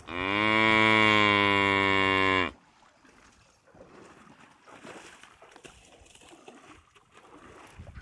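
Water buffalo giving one long, loud low moo lasting about two and a half seconds, its pitch dropping at the start and then held steady, cut off abruptly.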